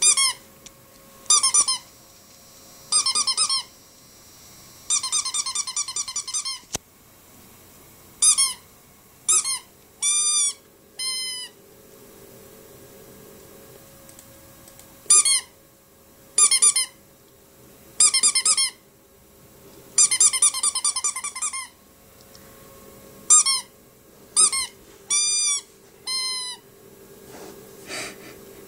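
Rubber squeaky toy squeaked in bursts as a Rhodesian Ridgeback chews on it: more than a dozen short bouts, some a fast run of quick squeaks, others single squeals that bend up and down in pitch.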